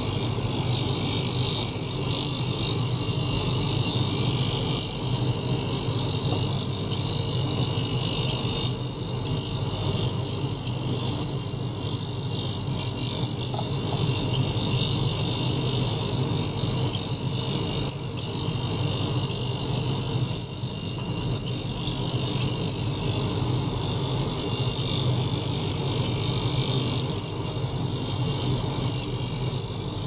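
Small household ultrasonic cleaner running with water in its stainless tank, a steady buzz with a hiss over it.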